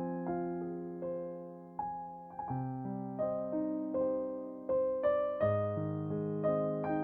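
Background music: a gentle piano melody over sustained lower notes, each note struck and then fading.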